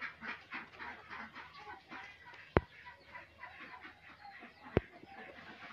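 Chickens clucking in a steady run of short calls, with two sharp clicks about two and a half and five seconds in.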